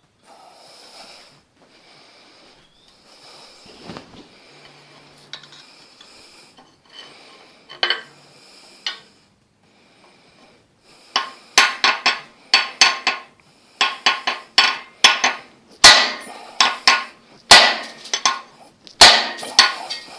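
A hammer striking a steel bar that is driven up against the underside of a seized piston in a Ford flathead V8 block, with the metal ringing after each blow. There is handling and a couple of clinks at first, then from about eleven seconds in a fast run of loud strikes, about two a second.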